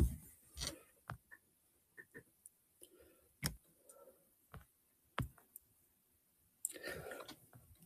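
Faint scattered clicks, and a brief soft rustle near the end: handling noise as a crocheted afghan is held and shifted close to the microphone.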